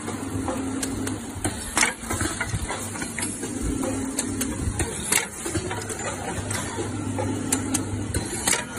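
Skewer-bagging packaging machine running: a steady motor hum with sharp mechanical clicks at irregular intervals.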